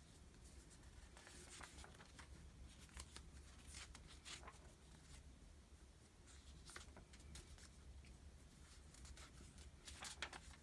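Near silence: room tone with a low hum and faint, scattered rustles and clicks.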